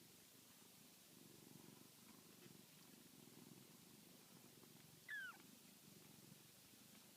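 Tiny kitten purring steadily and softly, with one short falling squeak about five seconds in.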